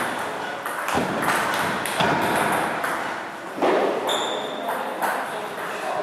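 Table tennis ball clicking off bats and the table, a string of sharp clicks at irregular spacing in a large hall. A brief high squeak comes about four seconds in.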